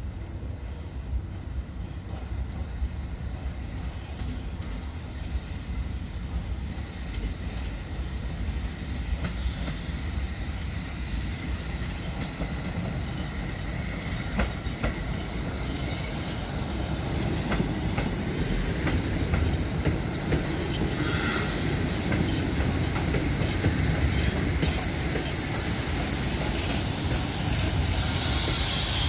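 Polish Ol49-class 2-6-2 steam locomotive hauling a passenger train, its rumble growing steadily louder as it draws near, with scattered sharp clicks from the wheels on the track. A loud steam hiss builds over the last few seconds as the engine comes close.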